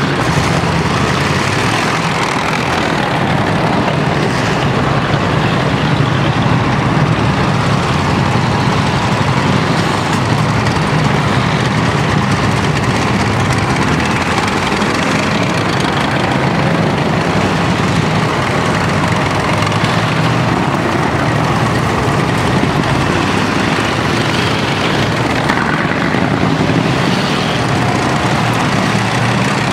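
A column of tracked armoured vehicles driving slowly past close by, their diesel engines running and their tracks rolling on the asphalt in a loud, steady, continuous noise.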